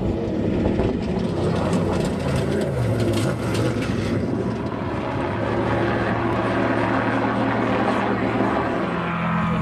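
Off-road race buggy's engine running hard at high revs as it passes close at speed, its pitch dipping and rising about three seconds in. It gives way to a steady engine drone, and a helicopter is heard near the end.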